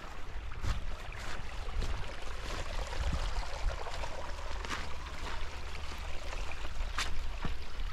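Wind rumbling on the microphone, with a faint watery hiss and a scatter of short, sharp clicks at uneven intervals; the clearest comes about seven seconds in.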